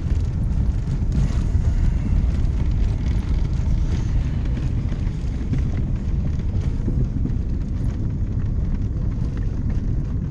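A car driving on a snow-covered road, heard from inside the cabin: a steady low rumble of engine and tyre noise.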